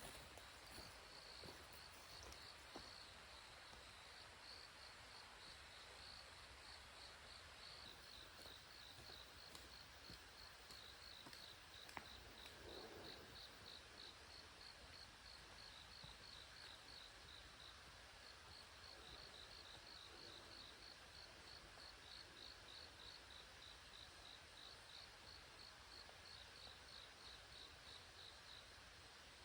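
Faint insects chirping in the autumn wilderness: a steady, high-pitched pulsing chirp repeating over and over in a quiet background. A single sharp click about twelve seconds in.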